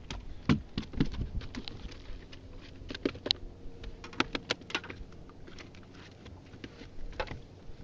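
Irregular light knocks and clicks of a just-landed bass flopping on a carpeted boat deck and being handled, thicker at first and thinning out.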